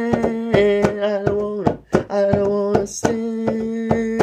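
A woman's voice holding long wordless notes, each bending down as it ends, over a hand drum struck by hand about four times a second.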